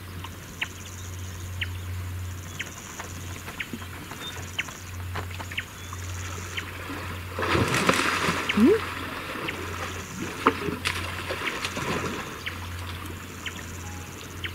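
African elephants splashing in a waterhole. About seven seconds in, a loud burst of splashing water lasts about two seconds as one elephant lunges at the other with its trunk and tusks, with smaller splashes around ten and twelve seconds in. Between them there are small drips and laps of water, and a high buzz comes and goes.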